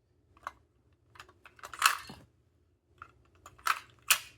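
Small hard-plastic clicks and clatter of AA batteries being handled and fitted into an RC transmitter's battery compartment: a scatter of short clicks, with the loudest knock about two seconds in and two more sharp clicks near the end.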